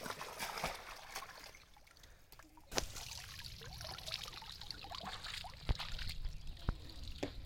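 Water trickling and splashing, with scattered sharp clicks. A steady low rumble comes in about three seconds in.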